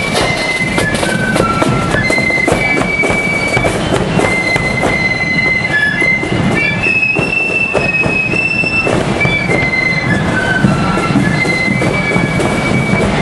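Marching flute band playing: shrill flutes carry a melody of held notes stepping up and down, over snare drums, a bass drum and cymbals.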